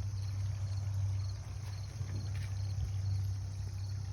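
Crickets chirping in short, evenly repeated trills over a steady low hum.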